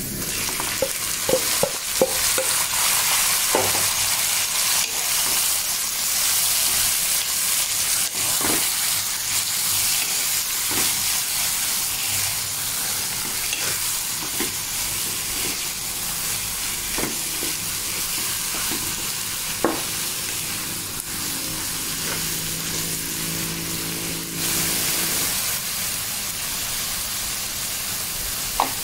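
Shredded banana blossom frying in hot oil with shallots and garlic: a steady sizzle, with a stirring utensil knocking and scraping on the pan, several times in the first few seconds and then every few seconds.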